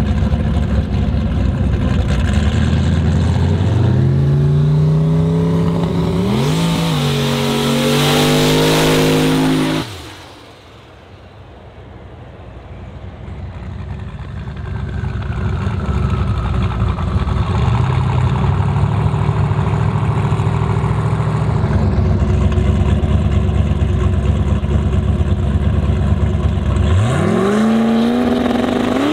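Modified Volvo 240 race car's engine launching from the line and accelerating hard, its pitch climbing with a gear change about two seconds into the run. After a cut, engine noise from further away swells slowly, and near the end another engine revs sharply upward.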